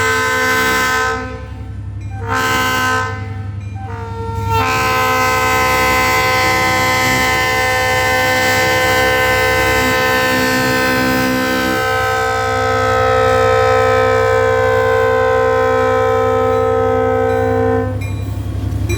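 Locomotive's multi-chime Leslie air horn sounding the grade-crossing signal: a long blast ends about a second in, a short blast follows, then a long blast is held for about thirteen seconds and cuts off near the end. A diesel locomotive engine drones underneath.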